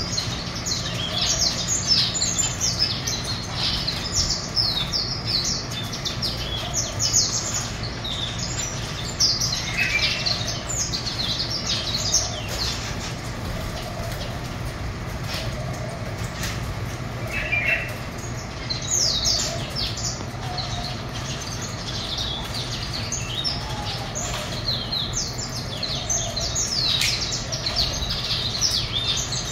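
Small cage birds in an aviary chirping and singing: a busy stream of short, high, downward-sweeping notes from several birds at once, over a low steady hum.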